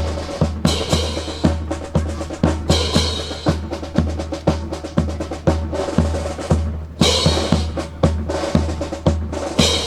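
Marching drum cadence: snare and bass drum beating a quick, steady rhythm, with louder snare rolls every few seconds, keeping time for a foot drill.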